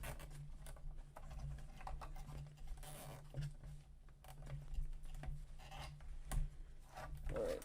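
Irregular light clicks and rustling as printer wiring and plastic parts are handled and gathered into a zip-tied bundle, over a steady low hum.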